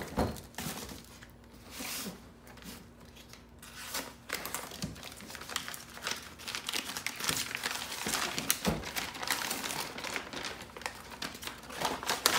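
Brown kraft-paper packaging crinkling and tearing as it is unwrapped by hand from a transmission gear.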